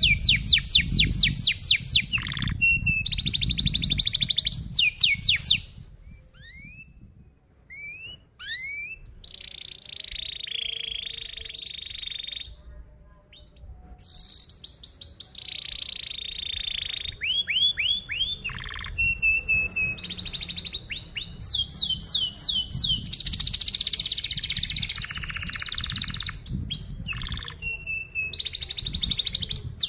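Yellow domestic canary singing a long song of tight, rapid rolls: fast trills of repeated sweeping notes, broken by a short lull with a few scattered single chirps about six to nine seconds in before the rolls resume.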